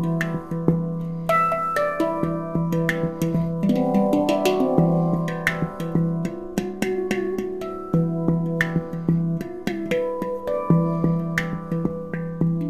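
Celestial Sound handpan in E Ostara tuning played with the fingertips: quick runs of ringing notes and light taps, with the low central note sounding again and again underneath.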